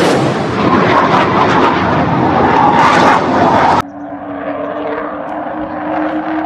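Chengdu J-20 stealth fighter jets flying past: a loud, full roar of jet engines. About four seconds in it cuts off suddenly to a quieter, steady jet drone with a low hum running through it as a pair of J-20s passes.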